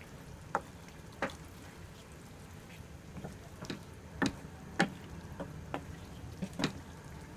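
Spatula knocking and scraping against a nonstick kadai while stirring thick chicken curry: about ten faint, irregular clicks.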